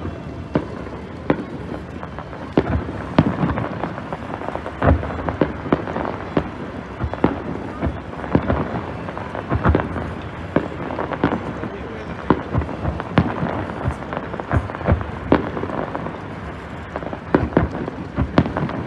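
Fireworks display: an irregular run of sharp bangs and booms, several a second at times, with a continuous crackling haze between them.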